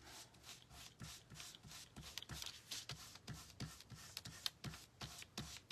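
Faint, quick, irregular soft taps and brushing of a stiff ink brush dabbing white craft ink onto embossed card stock and the ink pad, about three or four taps a second.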